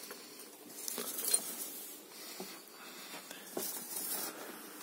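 Faint rustling with a few soft knocks scattered through, from the camera being handled and carried about.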